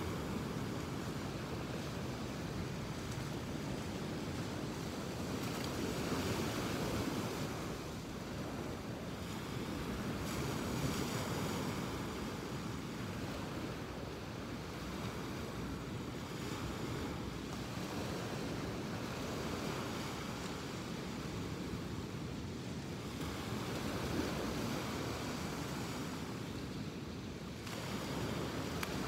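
Ocean surf washing onto the shore, a steady rush that swells and eases as the waves come in, with wind buffeting the microphone.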